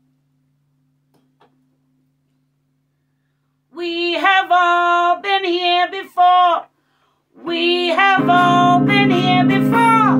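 A woman singing alone in short phrases, joined about eight seconds in by a strummed electric guitar under her voice. Before the singing starts there are a few seconds of near quiet with only a faint steady hum.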